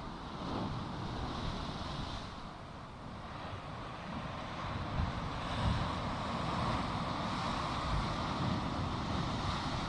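Wind buffeting the microphone in uneven low gusts, over a steady rush of outdoor noise.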